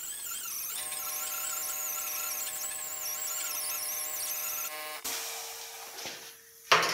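Air-powered grinder with a small abrasive disc grinding down a butt-welded steel patch on a car fender: a high whine that wavers in pitch under load, settling into a steadier tone about a second in. It stops about five seconds in, and a short loud knock comes near the end.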